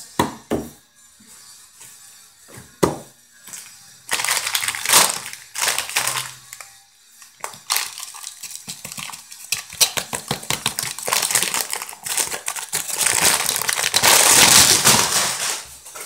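Chip bag crinkling and rustling as it is handled and shaken over a paper plate, with scattered crackles and clicks. It comes in bursts, the longest and loudest near the end.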